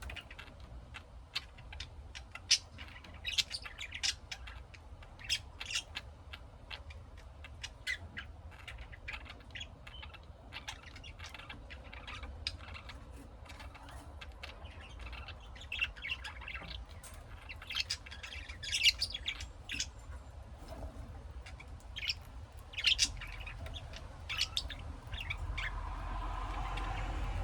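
Pet lovebirds chirping and squawking in quick, irregular short calls. A steady low rumble comes up near the end.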